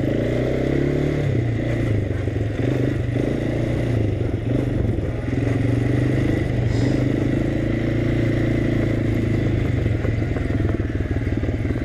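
Small four-wheeler (ATV) engine running steadily under the rider, its pitch shifting a little with the throttle.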